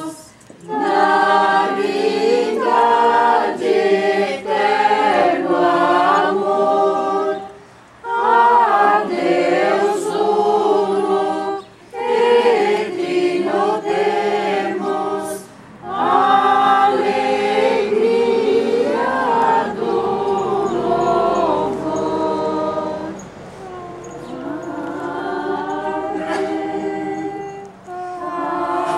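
A large crowd of worshippers singing a hymn together, line by line with short pauses between phrases. It grows softer over the last few seconds.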